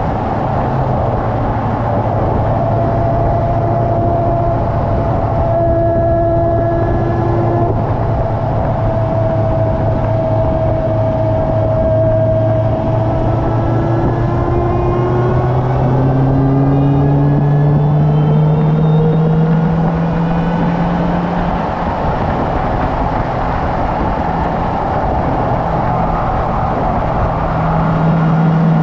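Car engine running at low revs on part throttle, its note rising slowly as speed builds, then a brief dip in pitch and level about three quarters of the way through before it settles, with steady road and wind noise underneath.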